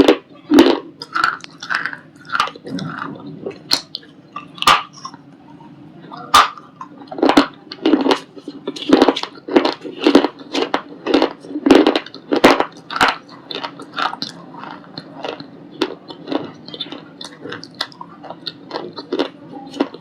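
White ball-shaped shale stone being crunched: a long run of sharp, dry crunches at an irregular pace, about one to two a second, coming thickest and loudest around the middle.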